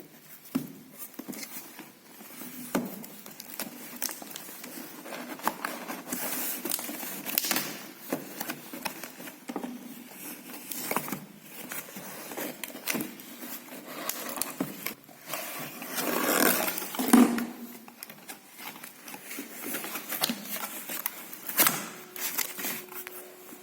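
Smartphone retail box and its packaging being handled: irregular rustling and scraping of cardboard and wrap with light clicks and taps, and a longer rustle about 16 seconds in.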